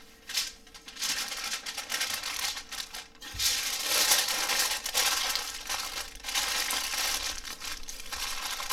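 Double layer of aluminium foil crinkling and crumpling as it is folded by hand around a rack of ribs and pressed into a flat packet; it grows louder about three seconds in.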